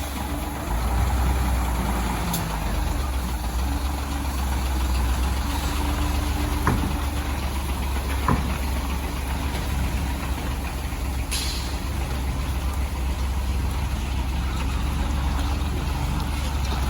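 Fishing boat's engine running steadily with a deep hum, with a couple of faint knocks about halfway through.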